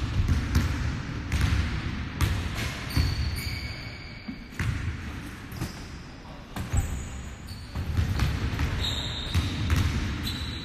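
Sneakered feet landing on a hardwood gym floor during step and knee-raise drills: heavy thuds about once a second, with a few short high squeaks.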